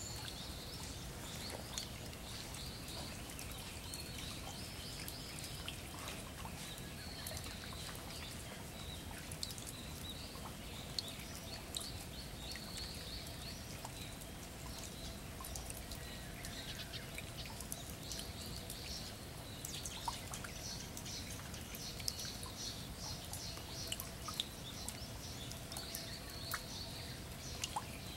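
Light rain falling into a shallow puddle, with scattered drops plinking on the water, and small birds chirping in short repeated bursts in the background.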